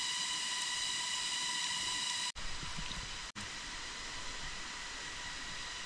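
Forest ambience: a steady high insect drone with several held tones over an even hiss. It cuts out for an instant twice, a little past two and three seconds in.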